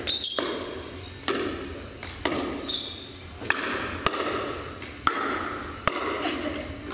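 Pickleball rally: paddles striking a plastic pickleball and the ball bouncing on a hard gym floor, a sharp pop about every second, each ringing briefly in a large hall.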